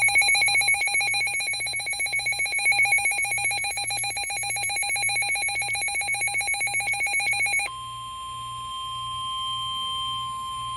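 A loud, rapidly trilling electronic alert tone, like a ringing telephone, for just under eight seconds. It then switches abruptly to the steady 1050 Hz NOAA Weather Radio warning alarm tone, which announces an incoming warning.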